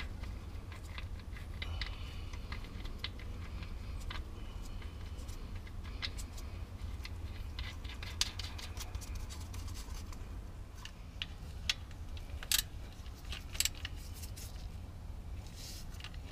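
Gearbox drain plug being threaded back in by a gloved hand: faint scratching and small metallic clicks, a few sharper ones near the end, over a low steady rumble.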